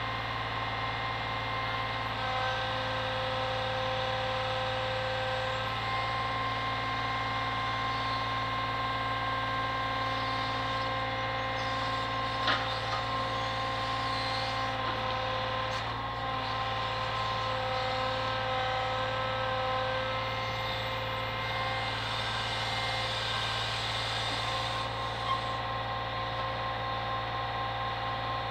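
Brick lorry's engine running steadily to drive its truck-mounted hydraulic crane, with a whine that steps in pitch every few seconds as the crane is worked. A single sharp knock about halfway through.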